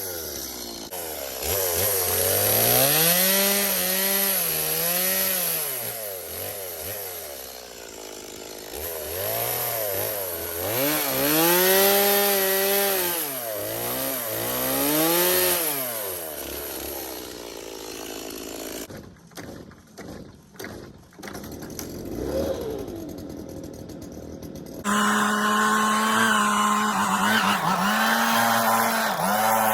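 Two-stroke chainsaw engine revving up and down again and again, as in cutting. After a quieter, broken spell, a steady engine tone takes over about 25 seconds in.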